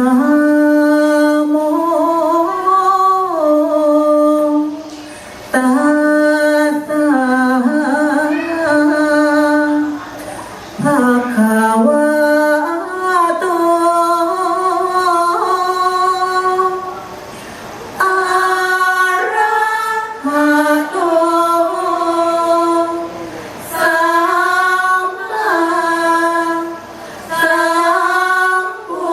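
Thai sarabhanya (สรภัญญะ) chanting: women's voices singing together without accompaniment, in long drawn-out melodic phrases that glide between held notes. There are short breaks for breath between phrases, about every five or six seconds.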